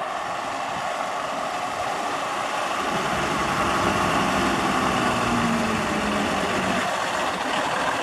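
Diesel engine of a yard tractor (terminal truck) running as it drives slowly closer, growing louder and heavier from about three seconds in.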